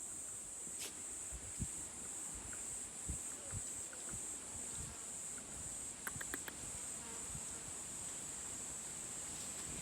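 Insects singing in a steady, unbroken high-pitched drone. Soft low thumps are scattered through it, and a brief cluster of sharp clicks comes about six seconds in.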